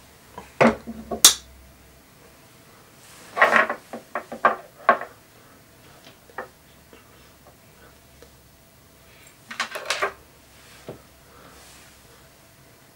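Hard clicks and knocks of quarter-scale Spider-Man statue parts being handled and fitted as the torso is swapped. They come in scattered clusters: about a second in, from about three to five seconds in, and again around ten seconds in.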